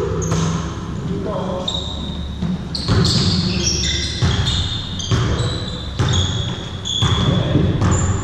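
Basketball game in play: sneakers squeaking in short high chirps several times, the ball bouncing, and players' and onlookers' voices in the background.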